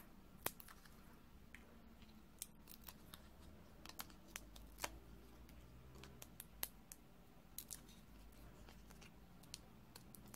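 Faint, irregular sharp clicks and ticks of fingernails and paper as foam adhesive dimensionals have their backing peeled off and are pressed onto a cardstock circle.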